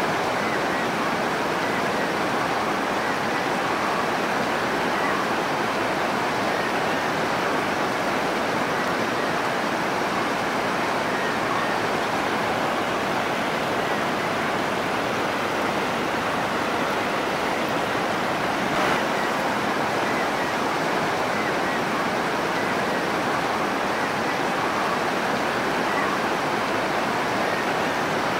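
Shallow river rushing over rocks: a steady, even rush of flowing water, with one faint tick about two-thirds of the way through.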